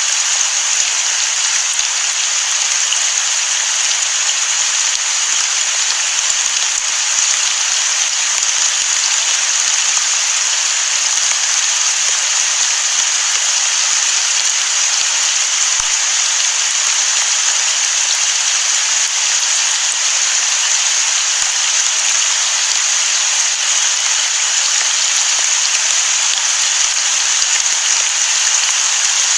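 Heavy rain falling steadily as an even, unbroken hiss, with no thunder heard.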